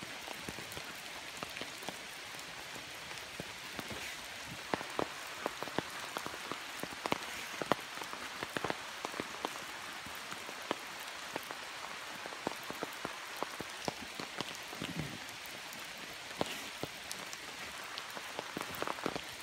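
Dog digging in loose, damp soil: a steady gritty patter from its front paws scratching and dirt spraying, with many irregular sharp clicks and ticks.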